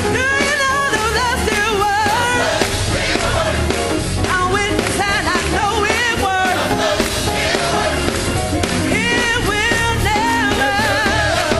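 Live gospel choir singing with a band, with a steady bass and drums beneath and wavering vocal lines above.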